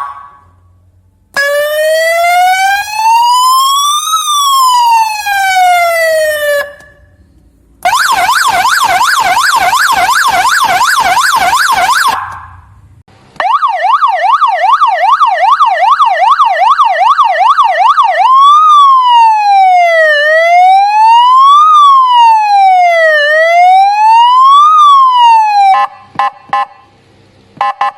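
Daseng electronic siren horn sounding its different tones in turn. It opens with one slow wail that rises and falls. Next comes a fast yelp and then a faster rapid warble, before it returns to slow wailing sweeps every few seconds and ends in short choppy beeps.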